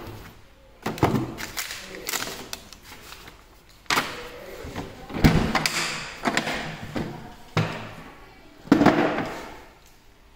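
Makita hard plastic tool case being packed and shut: a run of about seven knocks and thumps of plastic on plastic as the drill goes in, the lid closes and the case is handled.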